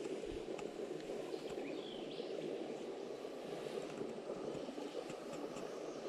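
Steady rushing of creek water through a small current, with a few faint bird chirps over it.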